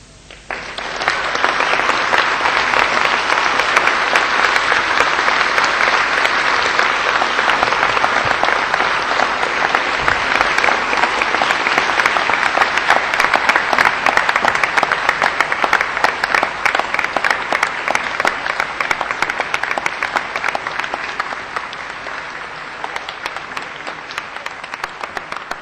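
A theatre audience applauding steadily, starting about half a second in and easing off slightly near the end.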